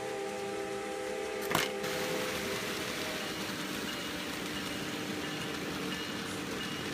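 N-scale model trains running on the track with a steady whirring rumble. A horn chord from a DCC sound-equipped model locomotive sounds until about two and a half seconds in, with a sharp click partway through it. Faint high pings then repeat at a steady pace.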